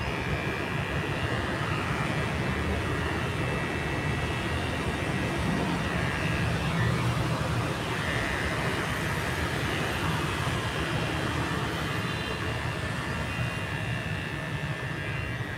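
Electric hair clippers buzzing steadily while cutting short hair.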